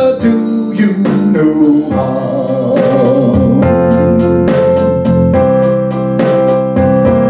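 A man singing over a recorded backing track of keyboards and a steady drum beat; from about two seconds in the music holds one long note.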